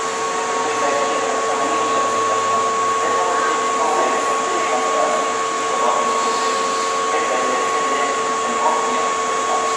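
Steady whirring hum with two constant whining tones from the idling on-board equipment of a stopped Keihan limited express electric train standing at the platform, with faint voices of people waiting.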